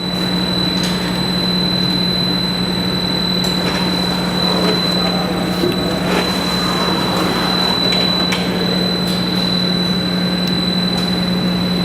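Norton gap-bed cylindrical grinder running under power: a steady, even machine noise with a constant low hum and a thin high whine over it.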